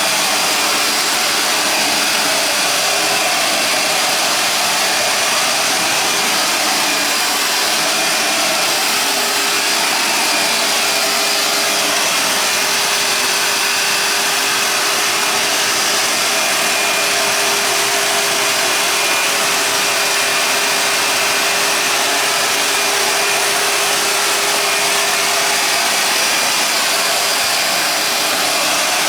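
Vacuum cleaner running steadily, an even motor hum that holds the same level throughout.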